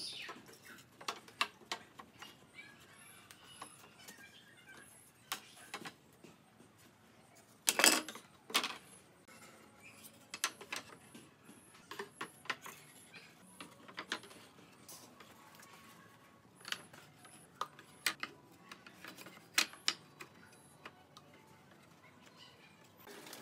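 Short wooden strips handled and set into a wooden frame: scattered light clacks and knocks of wood on wood, with a louder knock about eight seconds in.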